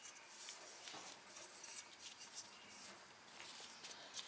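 Faint scratching and rubbing with a few light clicks, from hands working the push mower's recoil pull-starter, which turns very tight.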